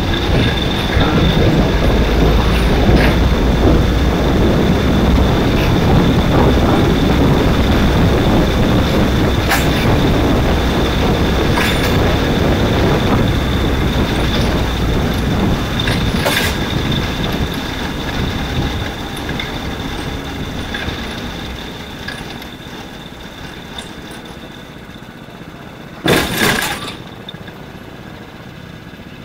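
Onboard sound of a small racing kart running flat out on tarmac, its engine and road and wind rumble loud and steady with a faint high whine, fading away over the last ten seconds as the kart slows and stops. A short loud burst of noise comes about 26 seconds in.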